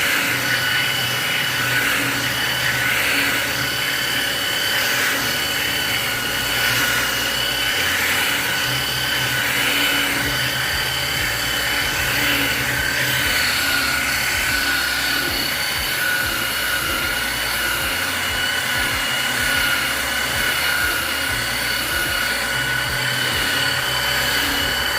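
Electric power sander running steadily against wood, its motor giving a constant high whine.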